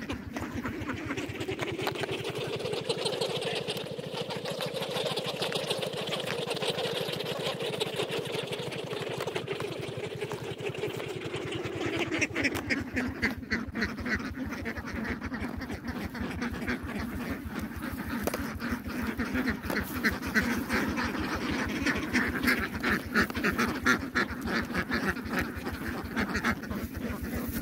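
A flock of domestic ducks quacking continuously, many calls overlapping, with the quacking growing denser and sharper a little before halfway through.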